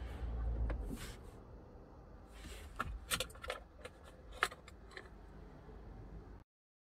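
Rustling and a handful of sharp clicks from someone moving about in a parked car's cabin, handling things at the console. The sound cuts off to dead silence shortly before the end.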